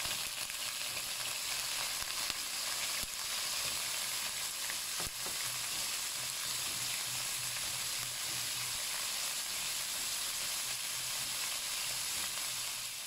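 Chicken livers and gizzards sizzling steadily in hot oil in a wok, just after going into the pan, with the odd faint pop.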